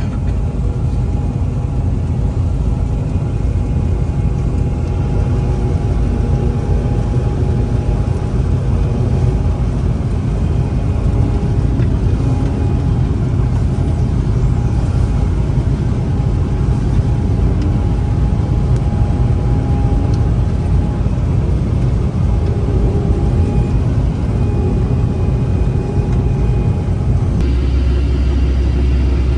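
A vehicle engine running steadily with a deep rumble. Near the end the sound changes abruptly to a steadier, deeper hum.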